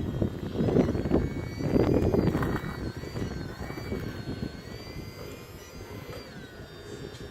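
Whine of a radio-controlled CAT model's electric motors rising and falling in pitch as it works, over a low rumble that swells loudly a few times in the first three seconds and then eases off.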